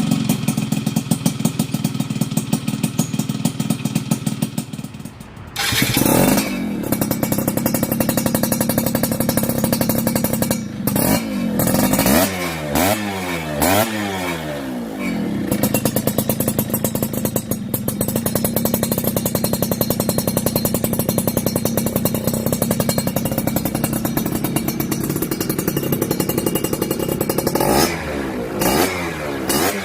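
Yamaha F1ZR two-stroke motorcycle engine running through a racing exhaust. It idles, dips briefly about five seconds in, then is revved up and down several times. It settles to steady running, with quick blips again near the end.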